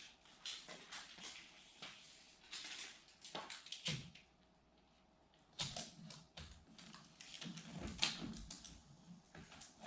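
Irregular faint clicks, knocks and rustling, like objects being handled and set down, with a quieter pause in the middle.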